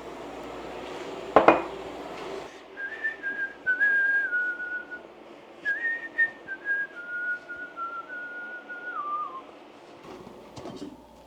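A person whistling a simple tune in two phrases, the notes stepping mostly downward and ending on a falling note. Before it there is a short stretch of kitchen noise with a sharp knock about a second and a half in.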